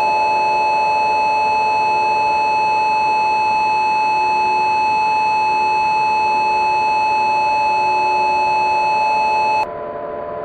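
Emergency-broadcast alert tone: one loud, steady electronic tone at a single pitch, held for about ten seconds and cutting off abruptly near the end. A fainter steady drone lies underneath it.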